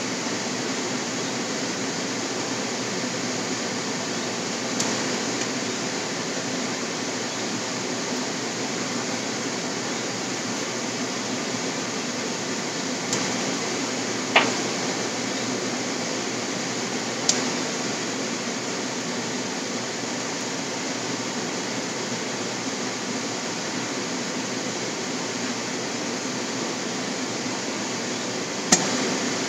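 Steady whooshing noise, with a few sharp clicks of a utensil against the frying pan, the loudest about halfway through and near the end.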